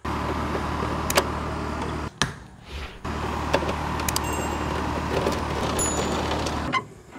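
Steady low rumble and hiss of wind on the microphone from an approaching storm, with a few light clicks. It drops out abruptly about two seconds in and again near the end.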